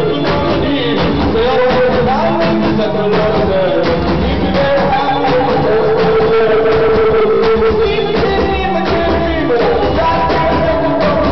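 Live rock band playing, with long held sung notes over electric guitar and a steady beat of repeated hits.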